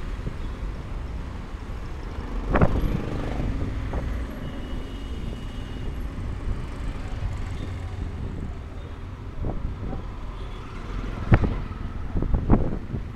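Street traffic noise: a steady rumble of passing vehicles, broken by several sharp knocks, the loudest about eleven seconds in.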